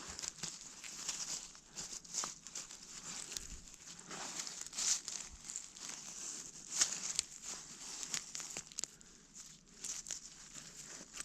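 Soil, roots and dead leaves being scraped and pulled apart by hand in a dig hole, an irregular run of rustles, crackles and small scratches.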